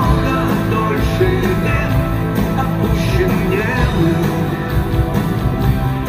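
Live rock band playing: electric guitars over drums and percussion in a steady, continuous passage.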